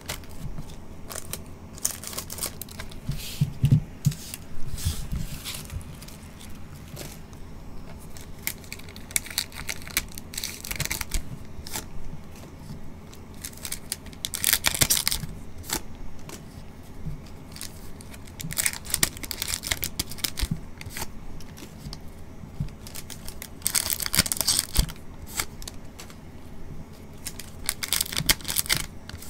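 Foil Topps Chrome trading-card pack wrappers being crinkled and torn open by gloved hands, in short bursts of crinkling and ripping every few seconds.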